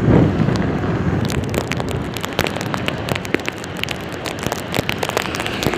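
Rain falling steadily as an even hiss, with many sharp taps of drops close by.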